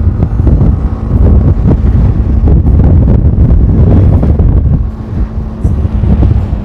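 Motorcycle riding along a road: heavy wind rumble on the microphone, with the engine running steadily underneath. The level drops briefly about five seconds in.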